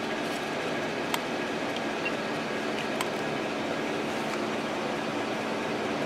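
Steady whir and hum of electric fans running off a power inverter, with a few light clicks, the clearest about a second in and again about three seconds in.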